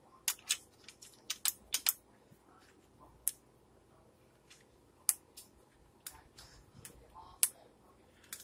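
Irregular sharp clicks and light hard taps of parts being handled and fitted together by hand: a quick run of clicks in the first two seconds, then single clicks about a second apart.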